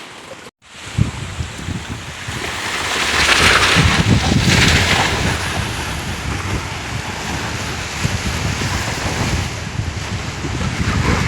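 Sea waves washing onto the shore, with wind buffeting the microphone; the surf swells louder about three to five seconds in.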